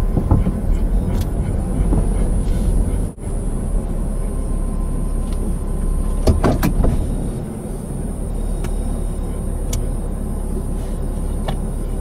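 Steady low vehicle engine rumble, with a brief dropout about three seconds in and a few clicks about six seconds in.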